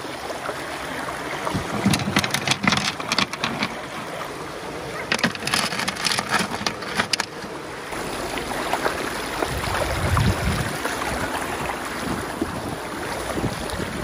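Mountain stream flowing: a steady rush of running water. Two runs of sharp clicks and knocks, about two and five seconds in, from stones being handled.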